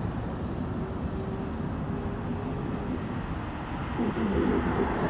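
Steady low engine rumble, with faint voice-like sounds about four seconds in.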